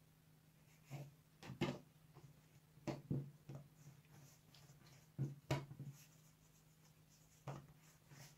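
Hands rolling a piece of yeast dough into a log on a floured silicone mat: a few faint soft thuds and rubs, coming in small clusters.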